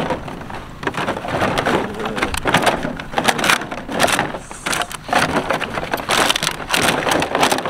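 Empty plastic water bottles crinkling, crunching and clattering against each other and a plastic kiddie pool as a German Shepherd puppy steps and scrambles through them. The crackling is continuous and irregular, made of many sharp clicks.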